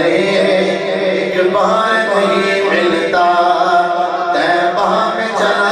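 A man singing a naat, an Urdu devotional song, into a microphone without instruments, drawing out long wavering held notes between the lines of the refrain.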